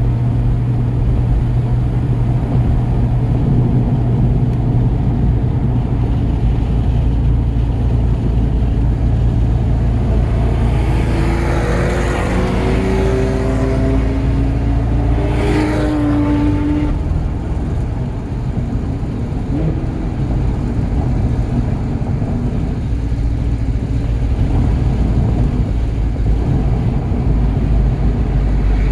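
Volkswagen Golf GTI Mk7's turbocharged 2.0-litre four-cylinder, with 034Motorsport Stage 2 tuning, running hard at track speed over steady road and wind noise. About eleven seconds in, a higher engine note swells and glides down over several seconds, with a short rush of noise near the peak; the sound eases briefly around eighteen seconds, then the engine pulls again.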